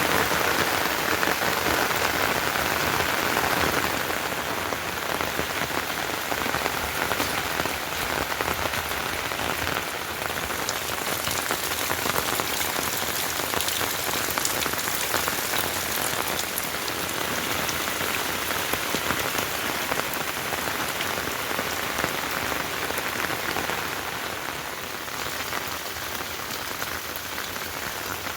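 Heavy rain falling steadily, a dense hiss of drops striking surfaces with scattered sharper drip ticks, a little heavier in the first few seconds and easing slightly near the end.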